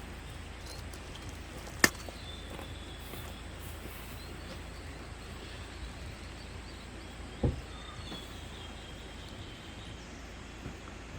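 Outdoor ambience: a steady hiss with a low hum and faint high tones, broken by a sharp click about two seconds in and a dull thump about seven and a half seconds in.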